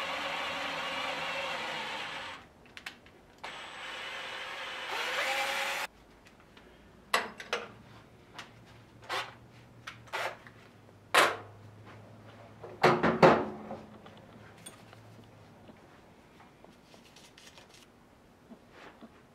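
Cordless drill running in two spells, rising in pitch shortly before it stops about six seconds in. Then a series of sharp knocks and clicks from tools and parts being handled, the loudest around eleven and thirteen seconds.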